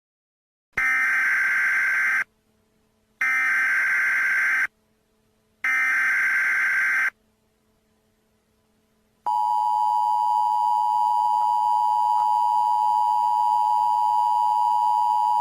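Emergency Alert System header: three bursts of digital data tones, each about a second and a half long with short gaps between. About nine seconds in, the steady two-tone EAS attention signal starts and holds, announcing a new alert.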